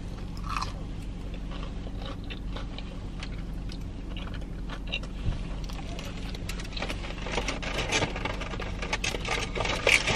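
Biting and chewing a Korean fried mozzarella cheese stick close to the microphone, with small wet clicks, over a steady low hum. Over the last few seconds, packaging rustles and scrapes as a foam takeout box is handled.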